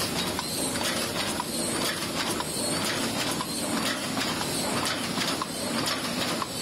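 Automatic paper cup forming machine running, its rotary turret and forming stations making a steady mechanical clatter with a cycle that repeats about once a second.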